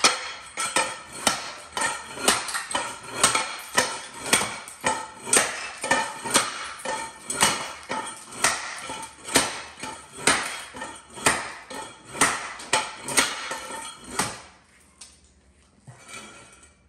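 A steady series of sharp metallic clinks and knocks, about two a second, that stops about fourteen seconds in.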